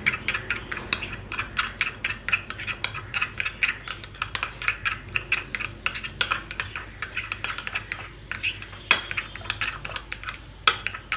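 A spoon stirring thick mayonnaise sauce in a small glass bowl, clicking and scraping against the glass in a quick steady rhythm of several strokes a second, with a few louder knocks near the end.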